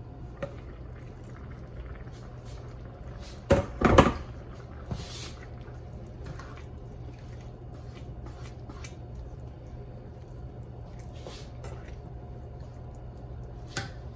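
Cookware knocking twice, about three and a half seconds in, typical of a pot lid being set on a pot, over a steady low hum with a few faint clicks.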